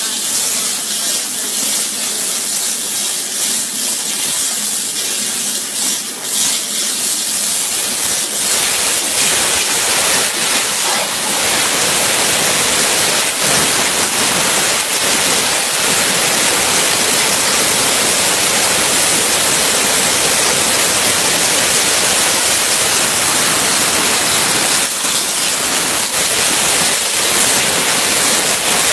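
CNC waterjet cutting machine running, its high-pressure water jet making a loud, steady hiss that fills out into a fuller, lower rush about eight seconds in.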